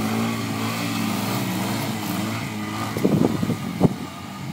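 ATV engine revving under load as the quad drives up out of deep mud, its pitch rising and falling. A few sharp knocks come about three seconds in.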